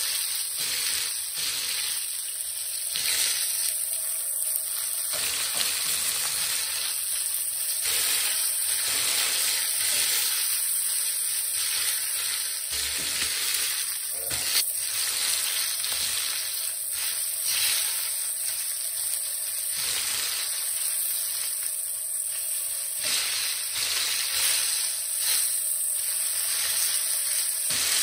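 Flour-coated Black Sea gobies frying in hot oil in a skillet: a steady sizzle with many small crackling pops.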